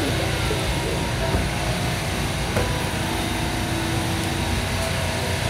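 Steady low rumble and hiss of warehouse-store background noise, with a single sharp click about two and a half seconds in.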